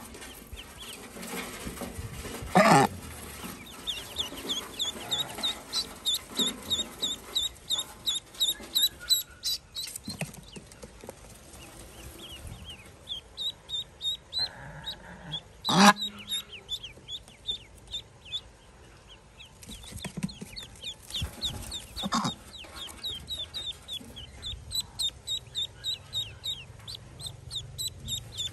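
Newly hatched Pekin ducklings peeping in a steady stream of short, high calls, about two a second with brief pauses. Two louder bumps stand out, a few seconds in and about halfway through.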